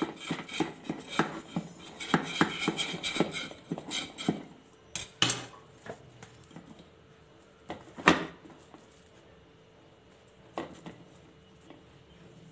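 A blade rapidly clicking and scraping against the inside of an aluminium cake tin as it is worked around the edge of a cooled cake. This is followed by three separate louder knocks as the tin is turned over and tapped to release the cake.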